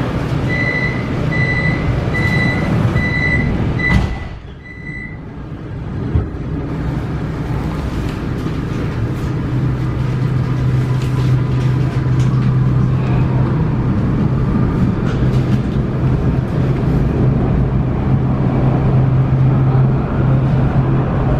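Vienna U-Bahn train's door-closing warning: a series of about seven short high beeps, then the doors shut with a knock about four seconds in. The train then pulls away, and its running noise builds with a steady low hum.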